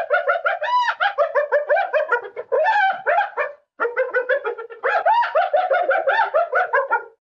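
Spotted hyena giggling: a fast run of short, high-pitched, rising-and-falling yelps, about seven a second, with a brief break about three and a half seconds in, ending just before the close.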